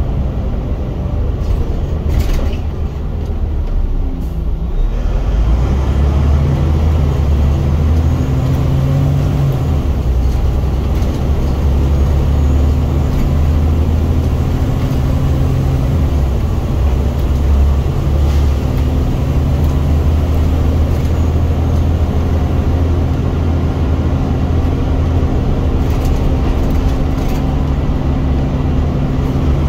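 Scania single-deck bus's diesel engine pulling hard under acceleration, heard from the rear seats: a loud, deep drone that eases off for the first few seconds, then builds and holds, with a few steps in pitch as the gearbox changes gear.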